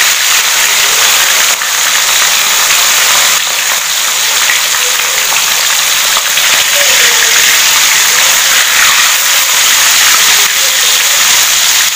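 Pieces of mackerel tuna (ikan tongkol) deep-frying in hot oil in a wok: a loud, steady sizzling crackle.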